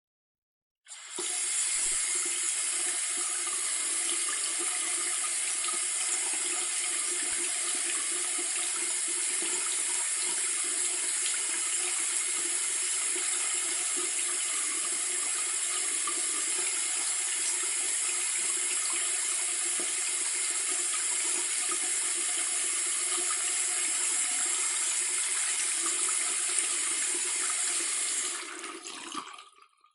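Bathroom faucet running steadily into a sink, a constant hiss of flowing water that starts about a second in and dies away near the end.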